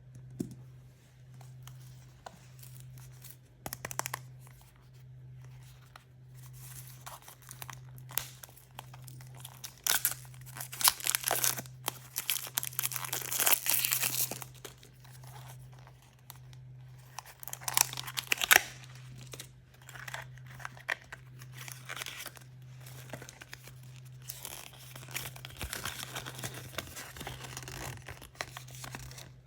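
Plastic and foil surprise-toy packaging being crinkled and torn open by hand. It comes as a run of crackles and rustles with a longer tear about halfway through and a few sharp snaps. A steady low hum runs underneath.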